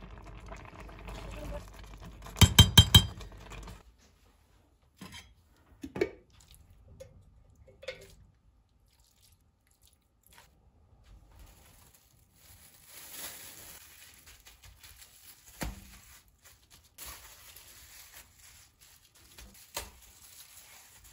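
Kitchen utensil sounds: a quick run of sharp clinks about two and a half seconds in, then scattered single knocks of a metal slotted spoon against an enamel pot as cooked cracked wheat is scooped out, with faint rustling near the end.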